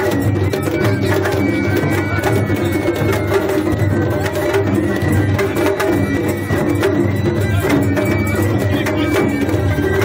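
Japanese festival music (matsuri-bayashi) played on a festival float: taiko drums beating a continuous rhythm, with high held notes above the drumming.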